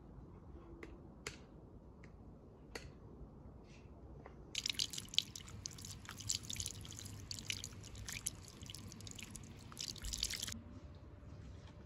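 A few scattered drips of water, then from about four and a half seconds in, water from a garden hose splashing over a pumpkin as a hand rubs its skin clean. The splashing stops about a second before the end.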